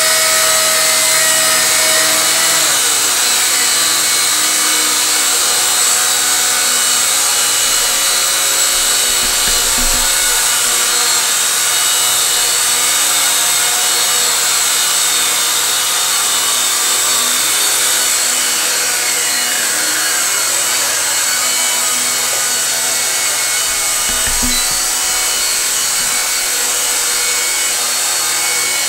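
Several micro RC helicopters hovering at once, their small electric motors and rotors making a steady, layered high-pitched whine and hiss. Twice a motor's whine falls away in pitch as a helicopter's battery runs down and it sets down.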